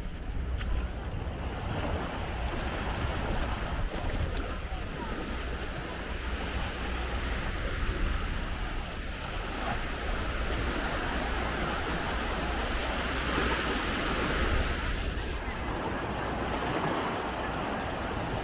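Sea surf washing onto the shore in a steady rush, with wind buffeting the microphone as a low rumble.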